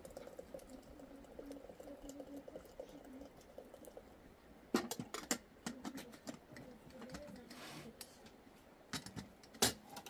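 Metal kettle and its lid clinking and clattering as they are handled over a wood fire: a cluster of sharp knocks about five seconds in and two more near the end.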